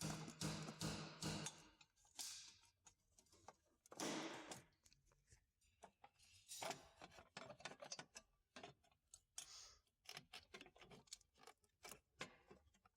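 Faint scattered clicks, ticks and short scrapes of hand tools and metal parts being handled while the battery tray is unbolted, busiest in the second half.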